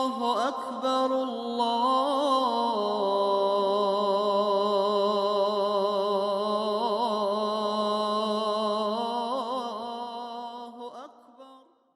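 A man's voice chanting long held notes with wavering ornaments. The pitch steps down about a third of the way through, and the chanting fades out near the end.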